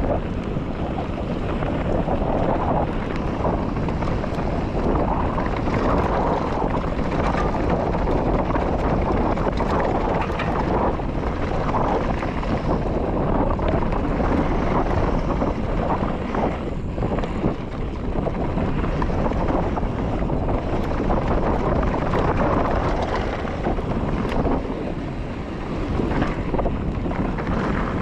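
Mountain bike riding down a dirt trail: wind rushing over the microphone, with tyres rolling over the ground and a steady run of clicks and knocks from the bike rattling over bumps.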